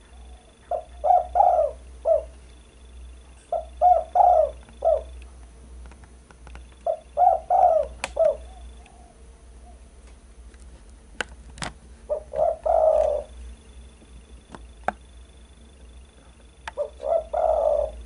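Spotted dove (derkuku) cooing: five short phrases of three or four notes each, a few seconds apart, with a few faint clicks between them.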